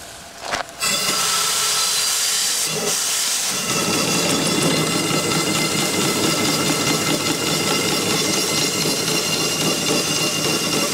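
Live steam hissing steadily from a small steam engine fed by a vertical boiler. The hiss starts suddenly about a second in, and a lower rush of steam joins it a few seconds later.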